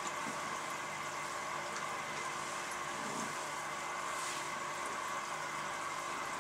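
Aquarium running at night: a steady hum with an even hiss of moving water, as from a filter or pump, and a few faint ticks.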